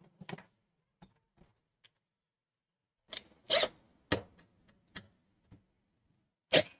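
Handling noise as a microwave oven is turned round and set down on a workbench: a string of short clunks, scrapes and rustles with quiet gaps, the loudest at about three and a half seconds and again near the end.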